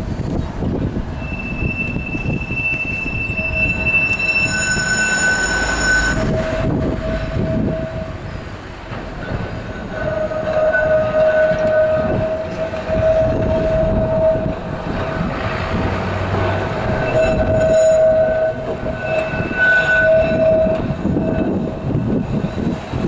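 Blackpool Balloon double-deck tram 701 rounding a curve. Its steel wheels squeal in high, steady tones that come and go over the low rumble of the car running on the rails. The squeal is loudest about halfway through and again near the end.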